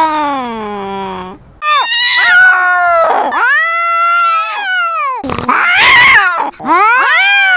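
Domestic cats yowling at each other in a territorial standoff: long, drawn-out wavering yowls that slide up and down in pitch, with a harsh, noisy spitting outburst a little past the middle.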